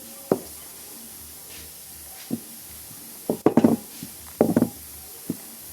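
Several sharp knocks, plus two short bursts of quick clattering taps about halfway through, as things are handled on a hard surface.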